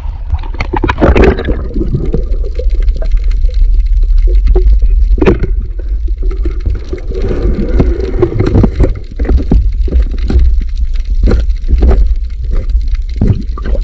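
Water sloshing and gurgling around a diver's camera in the sea, under a steady low rumble, with irregular sharp knocks from the diver's movements and spear handling.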